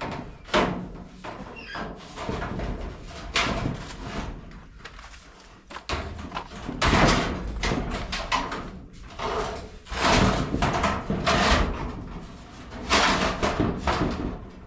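Irregular knocking and banging, a dozen or so loud strokes spaced unevenly, some of them drawn out.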